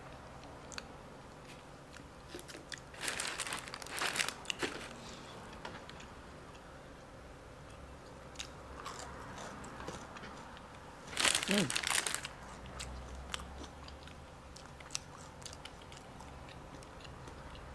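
Close-up eating sounds: a person chewing and biting food, with scattered small mouth clicks and two louder crunchy stretches, about three seconds in and again about eleven seconds in.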